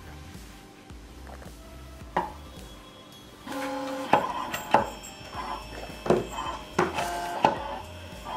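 BST-PL386 film cutting plotter starting a cut about three and a half seconds in: its motors whine at shifting pitches as the cutter head moves over the sheet, with several sharp clicks from the cutting head.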